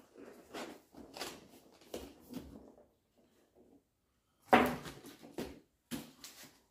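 Rummaging: short rustles and knocks of things being moved about while searching for packing material. After a brief pause comes one loud knock about four and a half seconds in, then a few smaller clunks.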